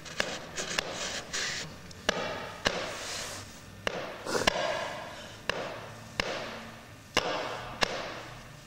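Sound sculpture pulsing in a heartbeat-like rhythm: pairs of sharp clicks about half a second apart, repeating roughly every 1.7 s, each pair followed by a fading hiss.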